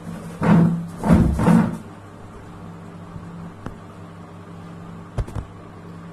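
Handling noise from paper sheets and a hand on a table: two short rustling bursts in the first two seconds, the second with a dull bump, then two light clicks about five seconds in, over a steady low hum.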